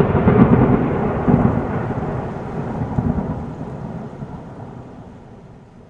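A rumbling noise that starts loud and fades away steadily over about six seconds.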